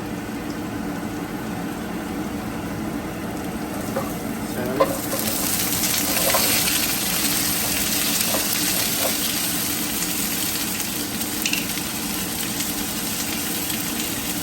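Food frying in hot oil in a pan, with stirring and light scraping. About five seconds in there is a sharp knock, and the sizzle jumps to a louder, hissier level that then holds steady.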